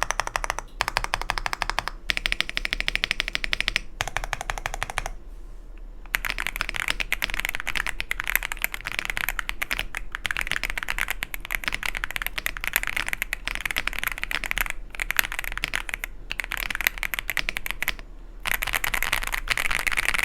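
Fast typing on an AULA F108 Pro gasket-mounted mechanical keyboard with LEOBOG Reaper linear switches and PBT keycaps: dense runs of key clicks, with a pause about five seconds in and a few short breaks near the end.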